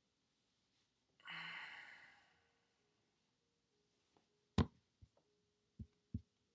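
A person sighs heavily once, a breathy exhale of about a second, out of frustration at a bug. About three seconds later comes a sharp click at the computer, the loudest sound, followed by three fainter clicks.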